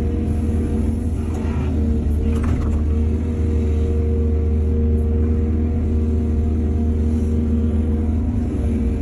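Excavator's diesel engine running steadily at a constant pitch, with a couple of brief noises about one and a half and two and a half seconds in.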